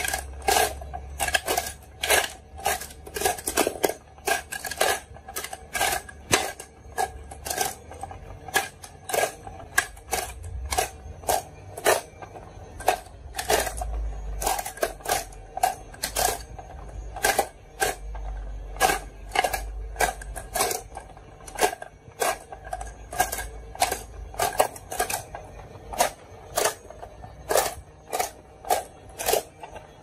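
Glass marbles clicking against each other and the plastic as they are dropped one by one into the holes of a plastic toy board, about two sharp clicks a second.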